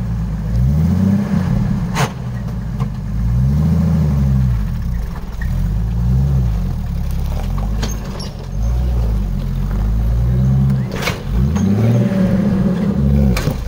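Off-road 4x4 vehicle engine revving up and down again and again, its pitch rising and falling every few seconds. A few sharp knocks come through, about two seconds in and near the end.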